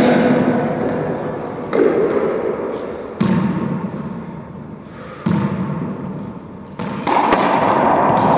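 Racquetball strikes and bounces: about four sharp hits of the hollow rubber ball off racquet, wall and floor, each ringing out in the long echo of the enclosed court.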